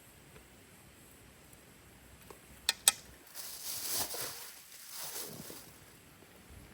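Two sharp clicks close together, then two breathy hisses of about a second each: a person slurping hot stew.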